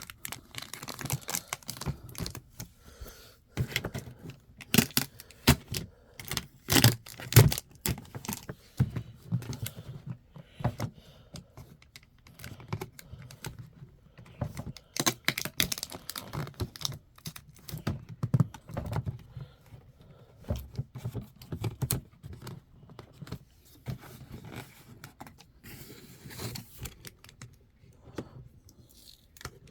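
Hands working at packaging to get it open: a steady run of irregular clicks, rattles and rustles, with some tearing.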